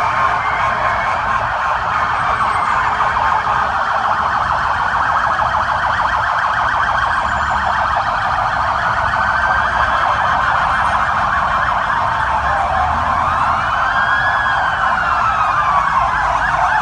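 Several police sirens sounding together, their fast yelping warbles overlapping. A slower rising-and-falling wail stands out near the end.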